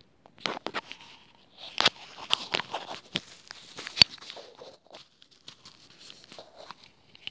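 Scattered clicks, taps and rustling of fingers handling a white cord and a small pink plastic piece, with a sharp click about two seconds in and the loudest about four seconds in.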